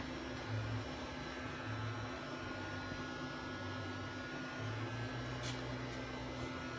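Johnford SV24 vertical machining center standing powered up at idle with its axes still: a steady electrical hum and hiss, with a low throb repeating about once a second.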